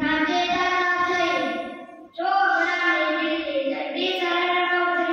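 A boy reciting a Gujarati poem in a sing-song chant, drawing out long held notes in two phrases with a brief break about two seconds in.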